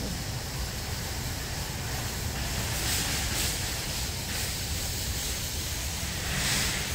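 Wind buffeting the phone's microphone outdoors, a steady low rumble under an even hiss. The hiss swells briefly about three seconds in and again near the end.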